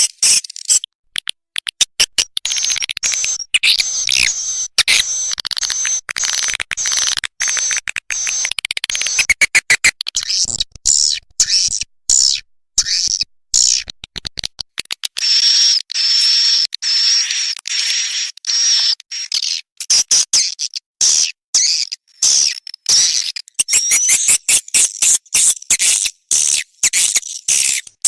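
Recorded edible-nest swiftlet calls used as a lure for a swiftlet house: fast, dense clicking chirps and high twittering trills, overlapping without a break, with a steadier high twitter holding through the middle.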